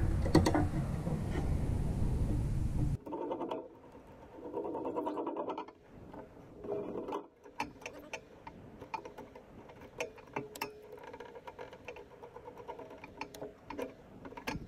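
Steel hose clamps being worked by hand around a metal roof-rack bar: a rapid ratcheting clatter as a band is fed through its clamp housing, then scattered light metallic clicks and taps. A loud steady rushing noise fills the first three seconds and cuts off suddenly.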